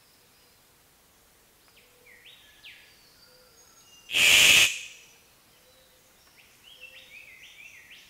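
Male Victoria's riflebird giving one loud, harsh call about halfway through, with faint short chirps before and after it.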